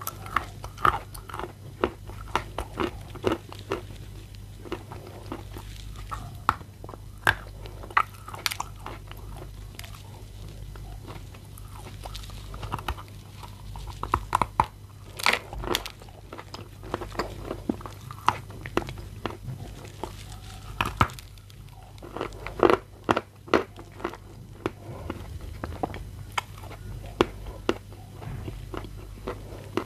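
Creamy Bashkir edible clay bitten and chewed close to the microphone: sharp crunches and crackles at an uneven pace, with louder clusters of bites about halfway through and again about seven seconds before the end.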